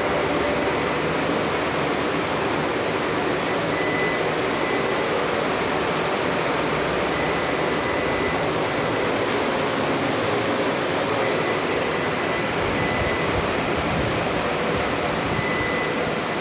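Steady rushing of the cooling fans of running solar inverters, with a faint high whine that comes and goes.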